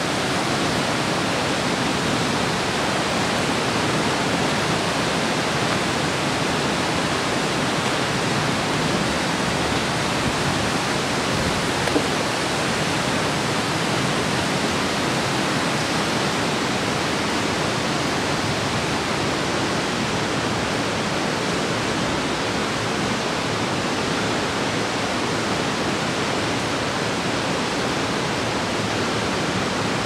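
Steady, even rush of water from the waterfall and stream in Smoo Cave, a sea cave. A single short knock comes about twelve seconds in.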